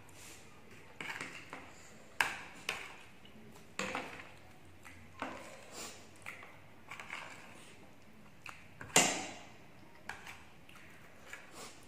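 Metal cutlery clinking and scraping against a plate and a serving tray of noodles, in scattered sharp clicks; the loudest clink comes about nine seconds in.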